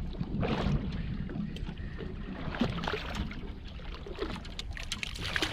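Wind rumbling on the microphone and water moving against a small fishing boat, with scattered light clicks and knocks at irregular times.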